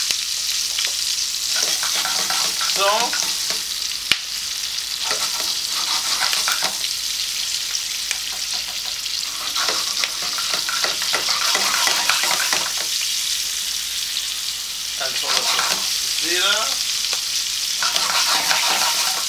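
Green bullet chillies sizzling steadily as they fry in oil in a stainless steel pan, with a spoon stirring and knocking against the pan. There is a brief squeak about three seconds in and again about sixteen seconds in.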